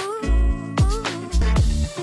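Upbeat background music with a steady drum beat.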